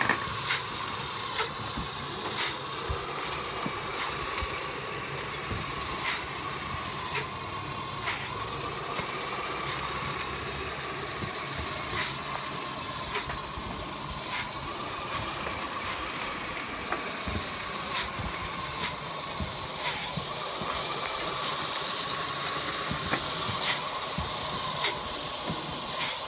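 Sola-Tecs C1000 rotating solar-panel cleaning brush on a water-fed pole, running with a steady whine over a water hiss, with scattered light clicks as it is worked across the panels.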